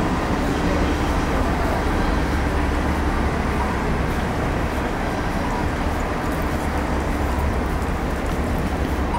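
Steady city street traffic noise, with a continuous low vehicle engine rumble under it.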